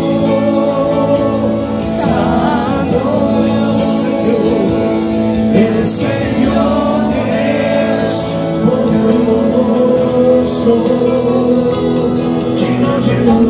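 Christian worship song: a man singing through a microphone over sustained backing chords, with a short sharp hit about every two seconds.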